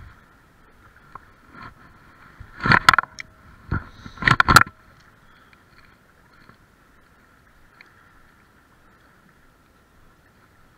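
Two short, loud bursts of knocks and rustling close to the microphone, about three and four and a half seconds in, while a spinning rod is cast and the reel worked. After that there is only a faint steady hum.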